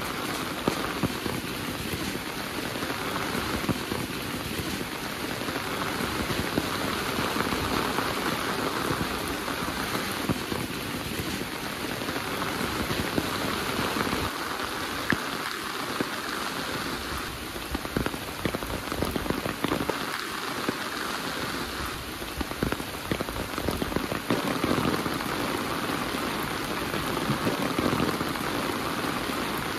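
Heavy rain falling steadily: a dense, even hiss with many small sharp drop impacts close by.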